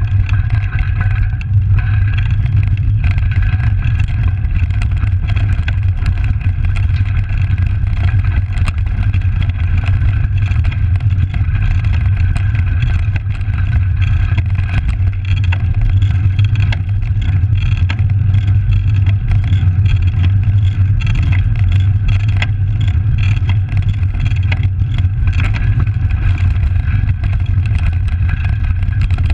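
Steady low rumble of a Trek Langster road bike rolling over a gravel trail, picked up by a handlebar-mounted camera: tyre noise and wind on the microphone, with frequent small clicks and rattles as the bike jolts over the surface.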